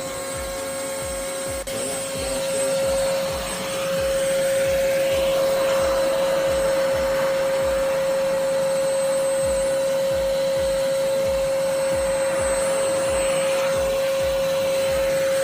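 Ingco cordless battery vacuum cleaner running at full speed: a steady motor whine over the rush of air. It grows louder about three to four seconds in, then holds steady.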